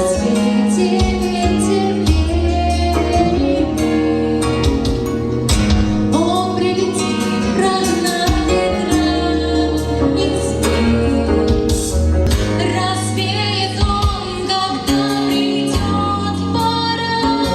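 A girl's solo voice singing a song over an instrumental backing track with sustained bass notes and a steady beat.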